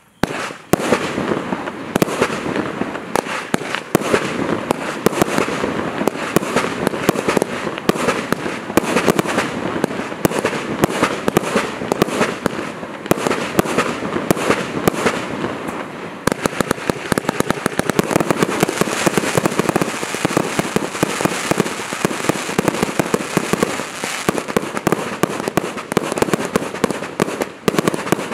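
Celtic Fireworks Bish Bash Bosh firework cake firing: a rapid, unbroken stream of shots bursting with crackle. The crackling grows thicker from about halfway through.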